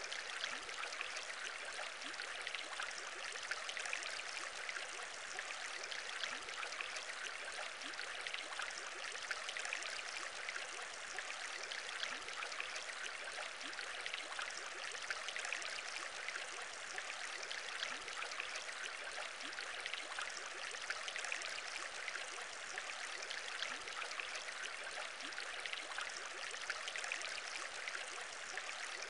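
Aquarium bubbling: a continuous stream of small bubbles over a steady watery hiss, with no pause or change.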